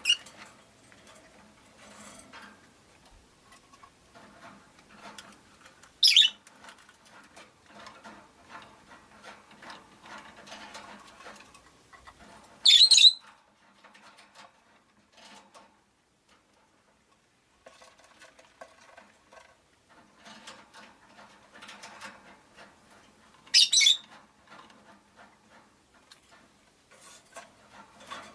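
Rosy-faced lovebirds giving four short, shrill calls spread across the stretch, with faint, continual rustling and clicking between them and a brief lull partway through.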